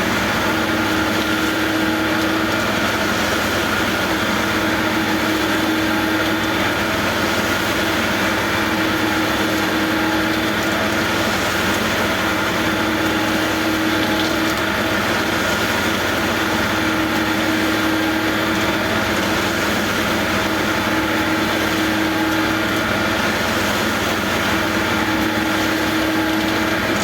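Backhoe engine running steadily at constant speed, an even mechanical hum with no change in pitch or level.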